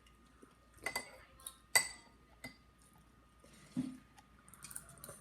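Spoons clinking against soup bowls: about five separate sharp, ringing clinks, the loudest a little under two seconds in.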